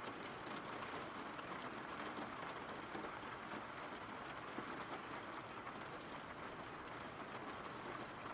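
Steady rain, a recorded rain-sound ambience falling evenly at a low level.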